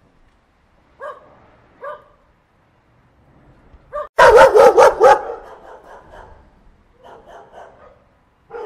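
Puppy barking and yipping: two short yips about a second apart, then a loud quick string of about six barks about four seconds in, then fainter yaps near the end.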